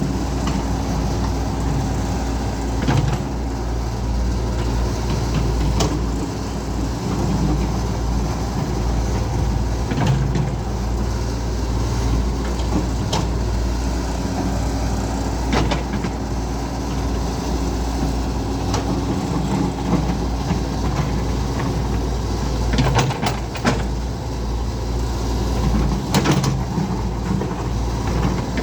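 Caterpillar hydraulic excavator digging: its diesel engine runs steadily, the low drone shifting in pitch as the hydraulics take load, with scattered knocks and clanks every few seconds.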